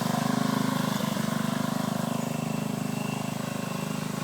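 Lawn mower engine running steadily with a rapid, even putter, growing a little fainter toward the end.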